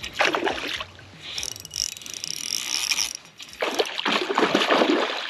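A hooked trout splashing and thrashing at the surface twice, briefly just after the start and again for well over a second near the end, with a spinning reel being cranked in between.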